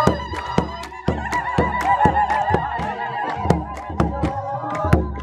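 Ethiopian Orthodox processional hymn: many voices singing held, wavering notes over a steady beat of about two strokes a second.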